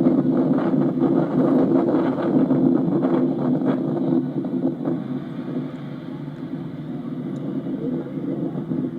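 Hino bus engine running, heard from on board, with short rattles and clicks over the engine in the first half; the engine sound eases off about five seconds in.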